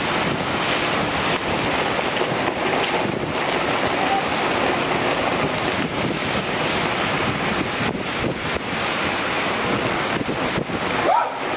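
Heavy thunderstorm downpour, a steady loud rush of falling rain, with strong gusts of wind buffeting the microphone.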